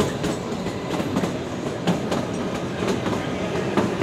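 Kalka–Shimla narrow-gauge toy train carriage running, a steady running noise broken by irregular clacks from the wheels and carriage.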